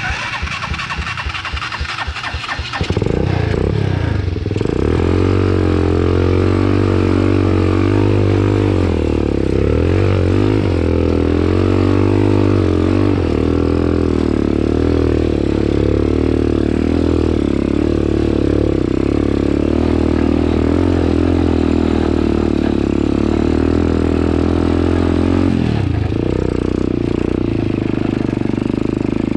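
Motorcycle engine: about three seconds of rapid, even pulses, then the engine note jumps up and runs steadily, wavering slightly in pitch. It drops lower near the end.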